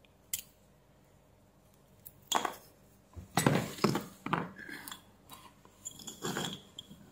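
Small hard plastic and metal parts of an opened USB-C charger, including the circuit board, and tools being put down and shifted on a workbench. There is a single click about a third of a second in, then an irregular run of knocks and clinks over about four seconds, loudest about three and a half seconds in.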